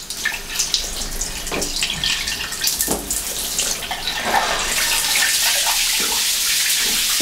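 Shower water spraying onto a glass wall and tiles: uneven splashing with a few sharp knocks at first, then from about halfway a steady hiss as the overhead shower runs.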